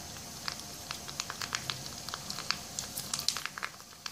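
Hot oil sizzling and crackling around two ready-made pani puri puris frying in a clay pan, with sharp pops coming more often in the second half as the puris puff up.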